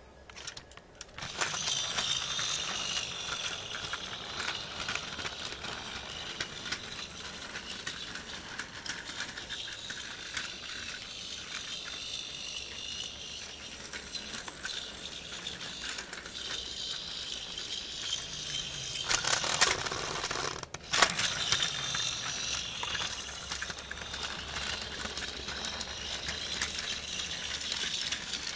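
Tomy Plarail battery-powered MTR East Rail Line toy train running on plastic track, a steady small-motor whir with gear and wheel clatter. It starts about a second in, grows louder for a moment about two-thirds of the way through, and cuts out very briefly just after.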